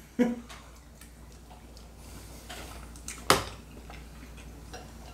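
Quiet table noises during a meal: small scattered clicks and taps from eating and handling food and dishes, with one sharp click a little over three seconds in.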